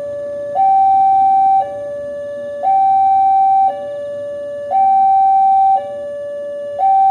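Railway level-crossing electronic warning alarm, alternating between a higher and a lower tone about once a second, the higher tone louder. It is the signal that a train is approaching the crossing.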